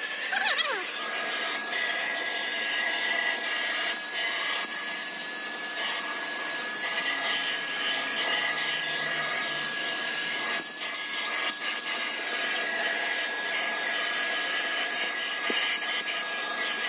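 Black+Decker 10-litre wet-and-dry vacuum cleaner running steadily with a high whine as its crevice nozzle sucks dust off shelves during dry vacuuming, with a brief falling whistle right at the start.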